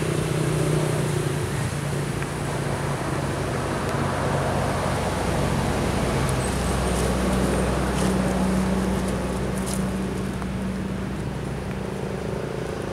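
Steady road-traffic noise: a vehicle engine's low hum under a broad rumble, with a few faint ticks.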